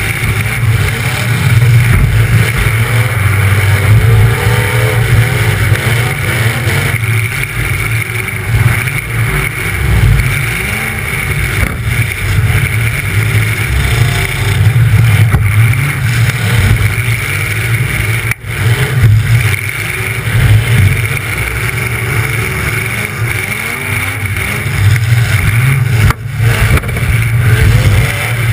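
Demolition derby car's engine running loud through open exhaust stacks sticking up out of the hood, revving up and down repeatedly as it manoeuvres, with other derby cars' engines running around it.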